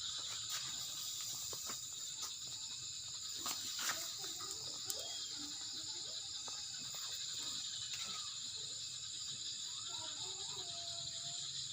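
Steady, high-pitched drone of an insect chorus, with a few faint clicks scattered through it.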